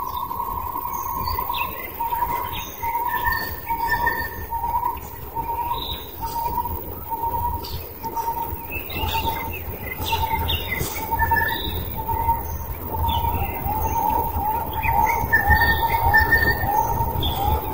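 Forest birds calling: one bird repeats a single mid-pitched note about twice a second throughout, while others give short, higher chirps. A low rumble runs underneath.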